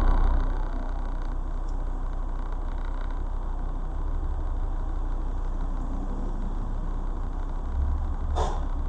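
Car engine idling with the car standing still, heard from inside the cabin as a steady low rumble. A short swish comes near the end.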